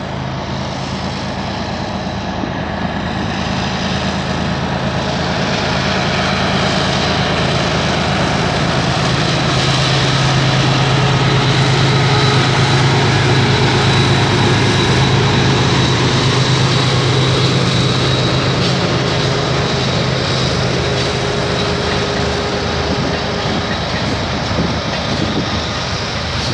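CN diesel freight locomotives passing with a steady low engine drone that grows louder toward the middle and then eases off. The rumble of freight cars rolling by on the rails goes on throughout.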